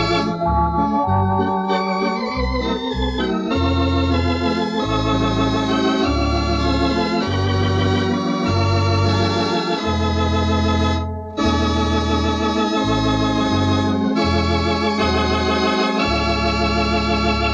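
Thomas electronic home organ playing music: sustained chords with vibrato over a bass line of separate notes that changes once or twice a second. The sound drops out briefly about eleven seconds in.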